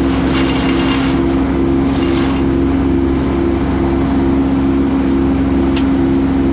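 A machine engine running steadily at constant speed, a loud even drone with a faint pulsing beat about twice a second.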